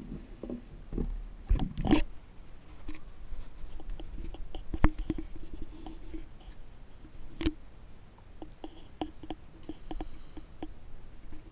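Handling noise from styrofoam cups and a potted seedling being moved about on a table: scattered clicks, knocks and rubbing, the sharpest knocks about two, five and seven and a half seconds in.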